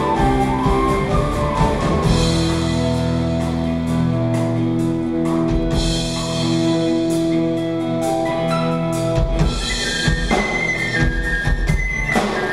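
Folk-rock band playing an instrumental passage live: drum kit under long held notes, with a high stepping melody line coming in near the end.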